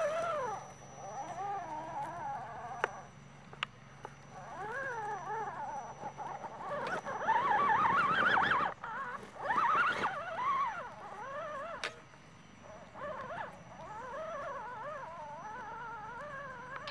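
Electric motor and gear drivetrain of an Axial SCX10 Jeep Rubicon RC crawler whining as it climbs a dirt slope, the pitch wavering up and down with throttle and load. It is loudest around the middle, with a few sharp clicks.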